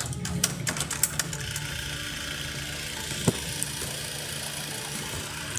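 Sony TC-WR645S cassette deck: a quick run of clicks as its transport buttons and mechanism engage, then the steady whir of a cassette rewinding, with one sharp click about three seconds in. The rewind runs properly, which the owner calls perfect.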